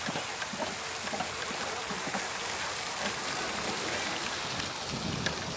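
Garden fountain's central jet spraying and splashing back into its stone basin: a steady hiss of falling water.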